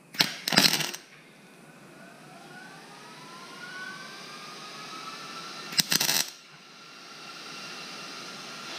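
Two short bursts of MIG welding arc crackle, about a second in and again about six seconds in, as a 1/8-inch plate is tack-welded onto a seat bracket. Between the bursts, a faint whine slowly rises in pitch in the background.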